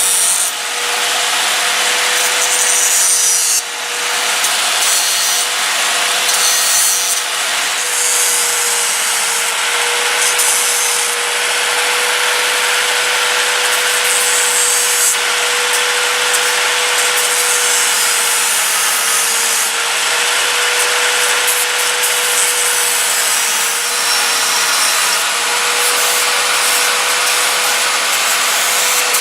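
Grinder with a very fine cutting disc running and cutting stainless steel: a steady whine under a hissing grind that rises and eases as the disc bites, with a brief easing about three and a half seconds in.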